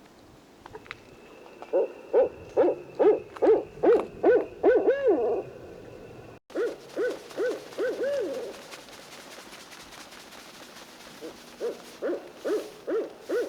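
Barred owl hooting in three rhythmic runs of low hoots, each ending in a longer drawn-out note: about nine hoots in the first run, four after a sudden break about halfway through, and another run starting near the end.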